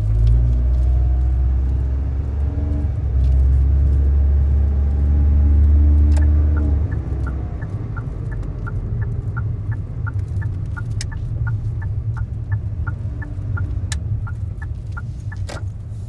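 Car engine and road rumble heard from inside the cabin, heaviest in the first seven seconds. From about six seconds in, a turn-signal indicator ticks evenly, about three ticks a second, as the car turns.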